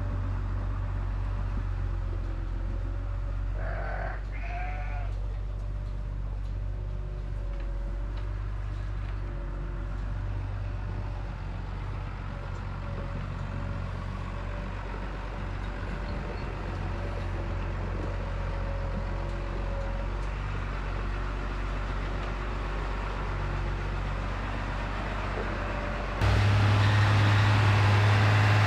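Sheep bleating, a few calls about four seconds in, over a steady low hum. Near the end the sound jumps suddenly to a loud tractor engine running close by.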